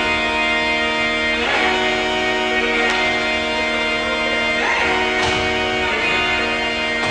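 Music with strummed guitar chords, the chord changing every few seconds.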